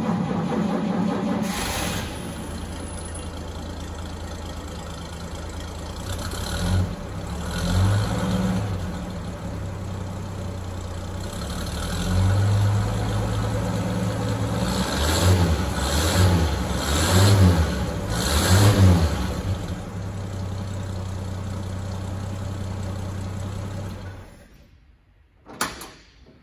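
1952 Chevrolet pickup truck engine on a cold start, catching and running, with a series of short throttle blips in the middle before settling back to a steady idle. It is switched off a couple of seconds before the end, followed by a single click.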